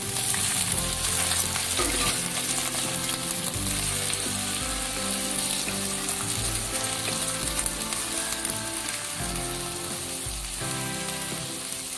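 Sliced garlic stalks sizzling in hot oil in a wok. The sizzle jumps up as the firm stem pieces go in, and they are stirred with a wooden spatula.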